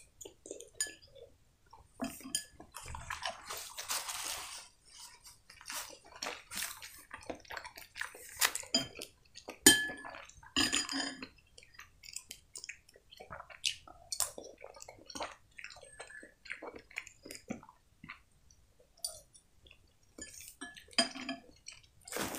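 Close-up eating sounds: a metal spoon clinking and scraping against a glass soup bowl in scattered short clicks, with soup being sipped from the spoon and chewed.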